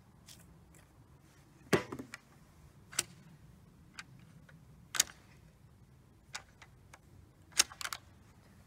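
A single shot from a Chassepot needle rifle firing a handmade black-powder cartridge, sharp with a short ringing tail, about two seconds in. Then three more sharp clicks about two seconds apart, the last near the end as a quick double click.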